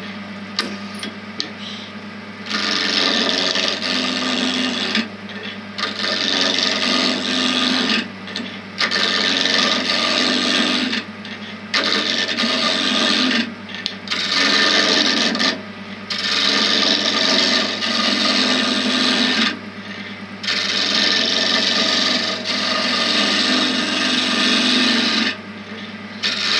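A roughing gouge cuts spinning pen blanks of very dry, brittle oak on a wood lathe running at 1300 RPM, rounding them over. The rasping cut comes in repeated passes of a few seconds each, with short breaks between them, over the steady hum of the lathe.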